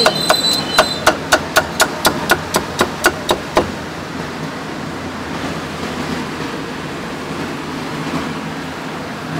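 A steel cleaver chopping roast pork and offal on a thick round wooden chopping block: a quick, even run of about a dozen sharp chops, three or four a second, that stops about halfway through, leaving a steady background hum.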